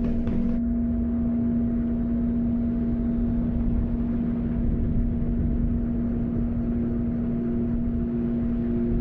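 A steady low drone: two sustained tones over a rumbling hum, with a soft repeating note joining near the end, pulsing about once every half second or so.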